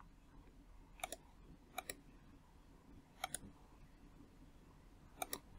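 Computer mouse clicking four times, each a quick double tick, spaced a second or more apart over faint room hum.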